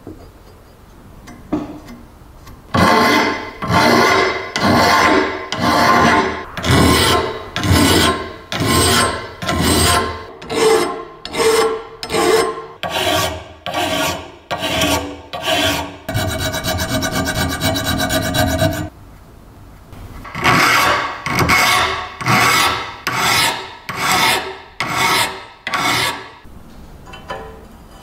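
Hand file rasping back and forth across a metal grain-mill casting clamped in a vise, about one and a half strokes a second. In the middle the strokes give way to a faster, even rasp for about three seconds, then the regular strokes resume.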